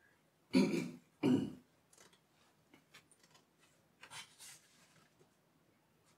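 A person clearing their throat in two quick bursts, a little over half a second in. Around four seconds in there is a soft rustle of a sheet of paper being handled.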